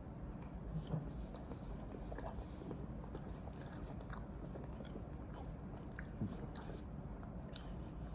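Faint chewing of a mouthful of peanut butter chocolate bar, with scattered small mouth clicks.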